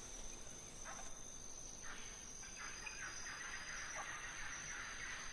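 Faint animal calls over a low steady hiss: a few short calls early on, then a busier run of calls in the second half.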